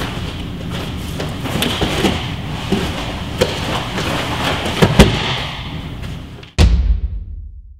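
Bodies and bare feet scuffling on a grappling mat during a rear bear hug escape and takedown, with several sharp knocks and thuds, and one much louder thump near the end.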